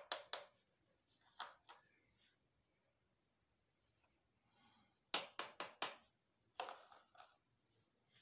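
Small plastic toy pieces being handled, clicking and tapping in short clusters: a few clicks at the start, two more a second or so later, then a quick run of four about five seconds in, followed by a few softer ones.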